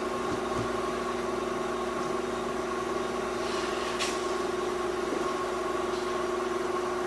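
Steady engine hum at an even pitch, like a motor idling, with no change in speed.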